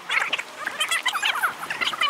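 A chorus of frogs calling, many overlapping rapid pulsed croaks.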